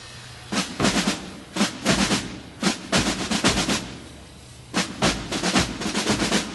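Snare drums of a marching drum corps playing short rolls and rapid rhythmic figures in four bursts, with brief pauses between them.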